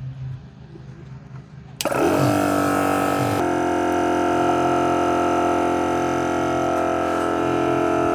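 Electric air compressor starting about two seconds in and running steadily, inflating a motorcycle tyre to push its bead out over the rim lip. Its pitch wavers for the first second or so, then holds steady.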